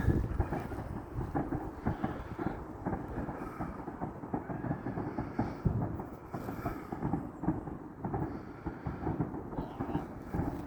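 Many fireworks going off at a distance, a dense run of irregular bangs and crackles that merge into a constant rumble.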